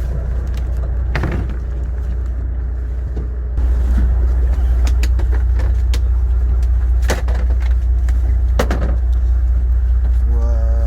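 Steady low rumble aboard a small fishing boat, stepping louder about three and a half seconds in, with a few sharp knocks.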